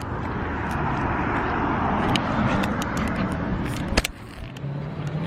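A road vehicle passing by, its tyre and engine noise swelling over about two seconds and fading away, with a click near the end.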